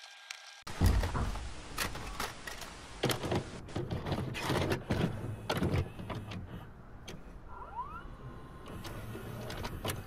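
Irregular taps, knocks and scrapes of a paintbrush working on a canvas propped on a tabletop easel, some with a low thump, and a short rising squeak about eight seconds in.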